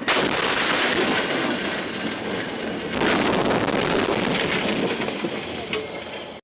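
Car crash recorded from inside the car: a sudden loud impact, then a continuous crashing and clattering of breaking glass and flying debris as the car tumbles. A second surge comes about three seconds in.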